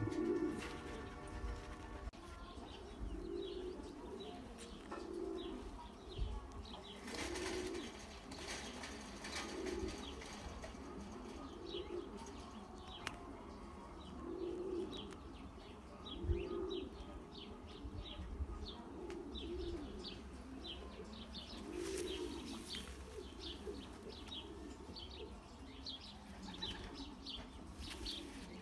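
Racing pigeons cooing over and over, a low coo every second or two, with a couple of brief flurries of wing flapping and short high chirps in the second half.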